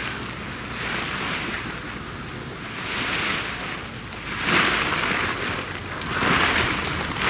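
Nylon fabric of a Lightline Gear tent rustling and swishing as it is handled and lifted during pitching, in about five swells roughly a second and a half apart, with some wind on the microphone underneath.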